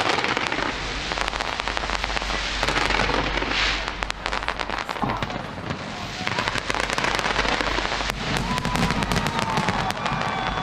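Large fireworks display: dense, continuous crackling and popping of bursting shells, with a few faint thin tones near the end.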